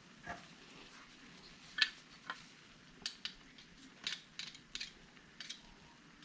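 Scattered light metallic clicks and taps of kitchen utensils, coming more often in the second half.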